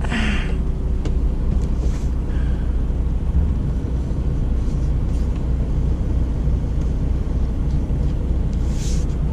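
Steady low rumble of the Peterbilt 579's diesel engine idling, heard from inside the cab, with a brief scrape of a razor blade cutting trim near the start.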